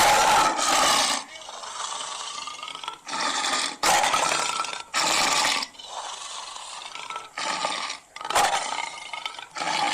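Synthetic dragon roar and growl sound effects: a run of short, harsh, rasping roars one after another, the first starting abruptly and lasting about a second.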